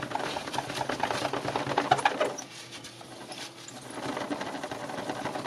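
Cloth scrubbing back and forth on a glazed ceramic tile, wiping off alcohol-marker ink: a rapid scratchy rubbing that eases about two seconds in and picks up again near four seconds.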